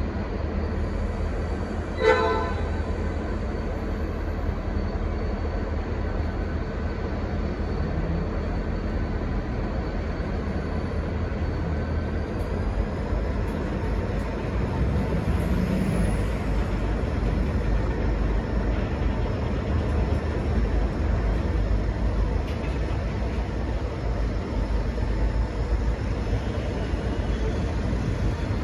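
V/Line N class diesel locomotive running with a steady low rumble, and one short horn toot about two seconds in.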